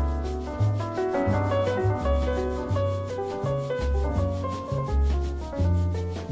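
Background instrumental music: a melody of short held notes over a pulsing bass line.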